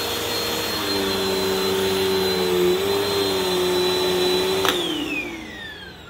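Bissell CleanView Swivel Pet Rewind upright vacuum (model 2258) running with a steady whine, then switched off with a click near the end, its motor spinning down in a falling whine.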